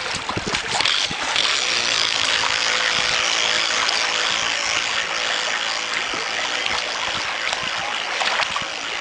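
Small waves washing and splashing against the stony shoreline right at the microphone, with a few sharp splashes in the first second. Under the water noise runs a faint steady motor tone from the radio-controlled racing boat out on the water.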